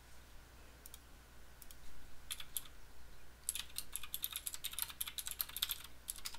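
Typing on a computer keyboard: a few scattered keystrokes, then a quick run of keystrokes for about two seconds before the end.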